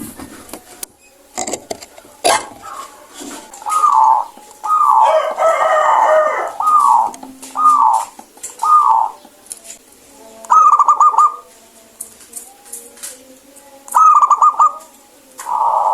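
Zebra dove cooing: a run of short, falling coo notes about four seconds in, then rolling, rapidly trilled coos about ten seconds in and twice more near the end.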